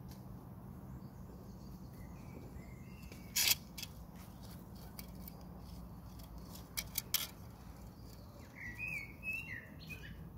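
Small birds chirping in two short spells, about two and a half seconds in and again near the end, over a steady low hum. A loud click comes at about three and a half seconds and three quicker clicks come around seven seconds, from hands and a small hand rake working the soil.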